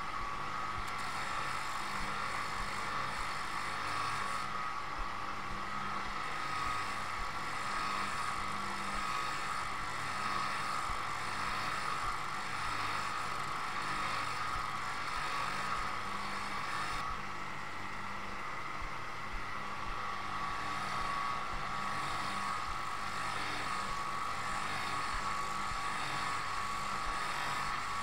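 Polishing lathe running steadily with a cloth mop spinning against a copper-plated brass radiator shell, a constant motor whine and rushing of the mop on the metal.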